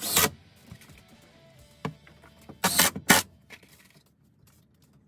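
Faint background music, broken by short loud knocks: one at the start and two close together about three seconds in. The music dies away near the end.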